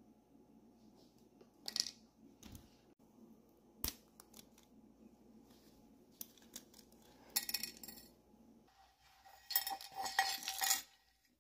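Small metal and plastic parts of a diecast toy car being pulled apart by hand: scattered clicks, then clinks and rattles of small pieces knocking on a stone slab, with the loudest clatter near the end.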